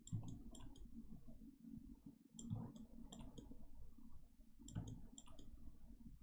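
Three short runs of quick, sharp clicks from a computer mouse, a few clicks in each run, over a low steady hum.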